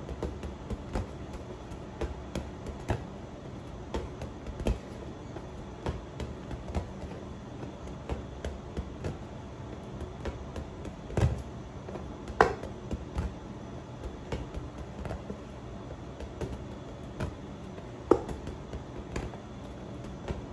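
Plastic toy football tapped by hand and knocking on a tiled floor: irregular light knocks and taps, with a few louder ones in the middle and near the end.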